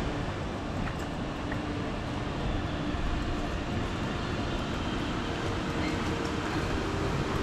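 Steady low rumble of a vehicle in motion, with a faint hum running through it.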